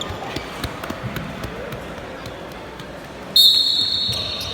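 A referee's whistle blown once, a shrill blast of under a second about three and a half seconds in. Before it come scattered sharp knocks of play.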